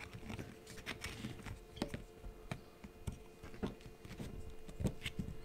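Irregular small clicks and taps as cinewhoop prop ducts are handled and pressed onto a drone frame by hand, over a faint steady hum.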